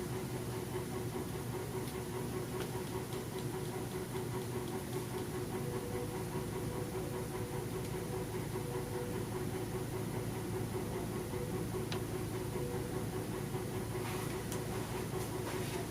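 A steady mechanical hum with a few held tones, with a faint click about twelve seconds in and some light ticks near the end.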